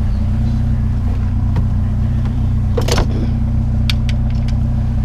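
Truck engine idling steadily, with a few short clanks and clicks as metal scrap is handled, the loudest about three seconds in.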